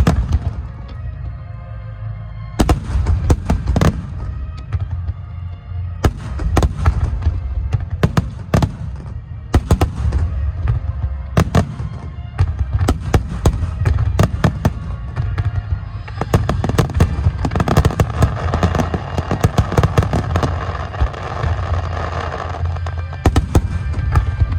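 Aerial fireworks shells bursting one after another, sharp booms with a deep rumble under them, over music playing through loudspeakers. The bursts come thickest for several seconds toward the end.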